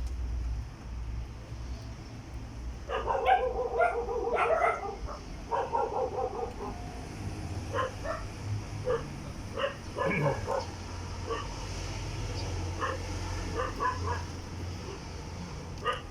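A dog barking: a quick run of barks about three seconds in, then single barks scattered through the rest, over a steady low hum.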